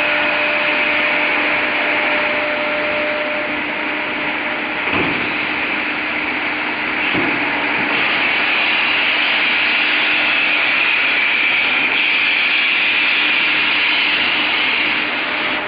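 Horizontal-parting flaskless green sand molding machine running through a molding cycle: a steady hiss over a low steady hum, with two short shifts in pitch about five and seven seconds in.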